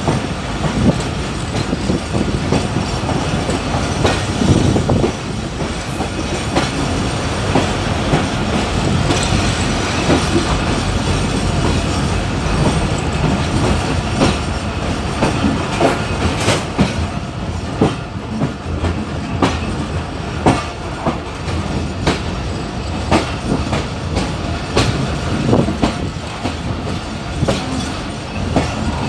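ZCU-30 diesel-electric locomotive running into a station, heard from its own side: steady engine and running noise, with the wheels clicking irregularly over the rail joints.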